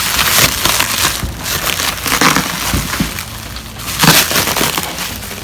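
Packaging crackling and crunching in irregular bursts as a plant parcel is unwrapped by hand, the loudest burst about four seconds in.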